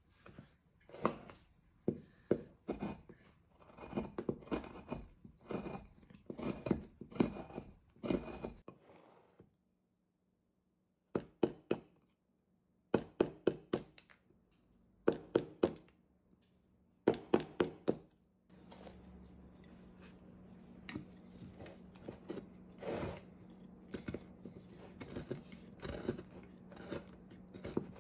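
Hand carving gouge cutting shavings from a hard wild cherry wood block: quick series of short, crisp paring strokes in bursts, broken by a brief silent gap about nine seconds in. A steady low hum runs under the strokes in the later part.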